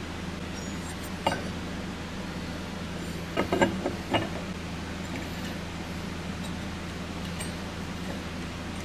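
A few light metallic clinks from metal rest parts being handled: one about a second in, then a quick cluster of four or five between three and a half and four seconds, over a steady low hum.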